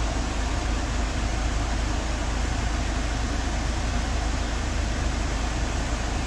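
Steady cabin noise inside a passenger van: a low rumble with an even hiss over it.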